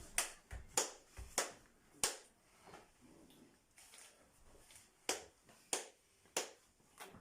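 A series of sharp, irregular clicks, about ten over seven seconds, with quiet between them.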